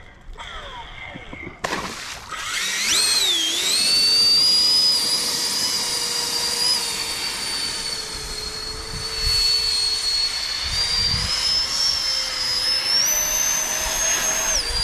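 Battery-powered RC airboat's electric motor and air propeller whining at speed. The whine starts about two seconds in, rises quickly in pitch, then holds steady and climbs a little higher near the end.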